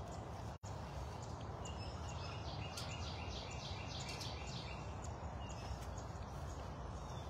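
Outdoor ambience with a steady low rumble, and a small bird singing a rapid run of repeated high notes in the middle. The sound cuts out for a split second about half a second in.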